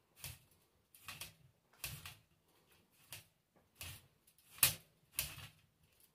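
Hand socket ratchet clicking in a run of short rattling strokes, about one every two-thirds of a second, as a bolt is tightened; the loudest stroke comes about two-thirds of the way through.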